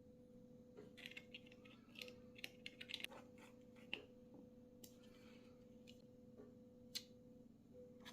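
Faint, irregular clicks and taps of small hardware being handled, an M.2 NVMe SSD and its aluminium pocket enclosure, with a quick run of clicks about a second in and single sharper clicks near the middle and toward the end. A faint steady hum lies underneath.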